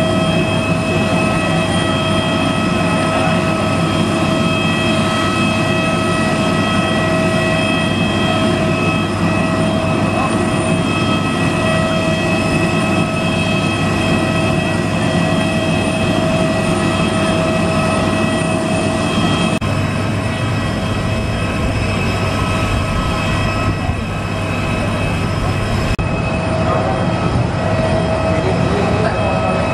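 Steady whine and roar of a parked Airbus A320's turbine, most likely its auxiliary power unit running while passengers disembark, with several high whining tones held unchanged throughout.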